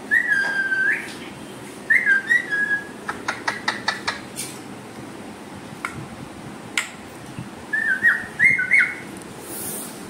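Pet parrot whistling a tune in short phrases: one long held note that rises at its end, then shorter notes with little glides. A quick run of sharp clicks comes in the middle, and a few single clicks follow.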